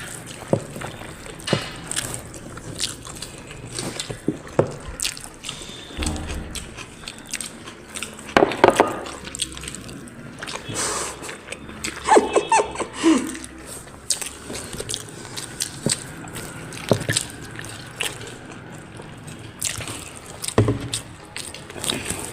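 Eating sounds by hand: wet squelches and irregular clicks of rice being mixed with dal and curry and chewed, close to the microphone.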